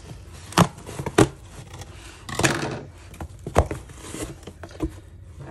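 Scissors cutting through packing tape and the cardboard seam of a shipping box: a few sharp snips with rustling and tearing of tape and cardboard between them.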